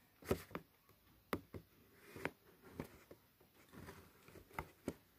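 Faint handling of a cardboard toy box while fingers pick at the tape sealing it: scattered light clicks and scratches at uneven intervals.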